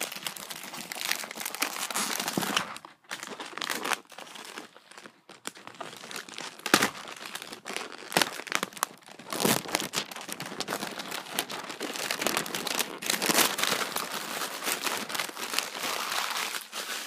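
Plastic packaging crinkling and rustling as it is worked off a boxed airsoft pistol, with many small clicks and a few louder knocks against the package.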